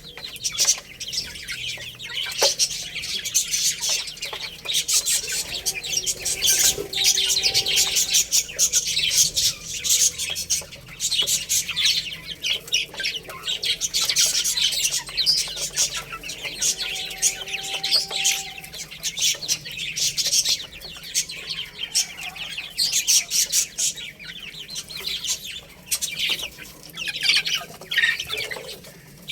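A group of baby chicks peeping continuously, many short high-pitched chirps overlapping.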